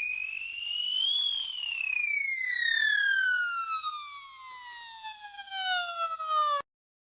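A siren-like sliding tone: one pitched note with overtones rises for about a second, then glides steadily down over about five seconds and cuts off suddenly near the end.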